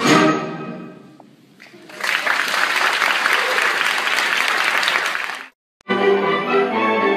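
A concert band's final chord rings out and fades, then the audience applauds for a few seconds before the sound cuts off abruptly. About six seconds in, the concert band starts playing again, with flutes.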